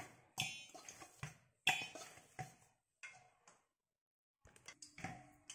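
Dough being kneaded by hand in a stainless steel bowl: a scatter of short, faint squishes and light taps on the metal, with a pause of about a second in the middle.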